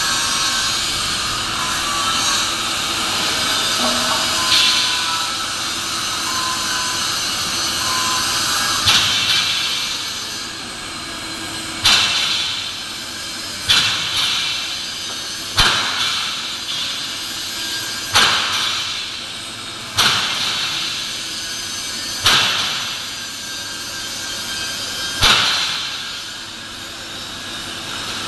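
Steady industrial noise in a large metal fabrication hall. In the second half come sharp bangs about every two seconds, each dying away with a reverberant tail.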